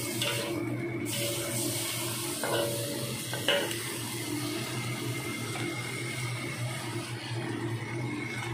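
Scallops and snow peas stir-frying in a wok: a steady sizzling hiss, with the metal spatula clacking against the pan twice a few seconds in, over a steady low hum.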